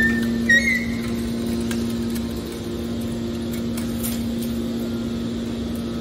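Hydraulic metal baler's power unit (electric motor and pump) running with a steady hum, the machine idling after ejecting a bale. A few brief high squeaks come in the first second.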